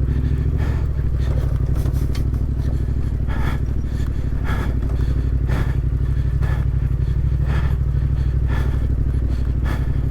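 Adventure motorcycle engine running steadily at low revs on a rough off-road track, with a short clack about once a second.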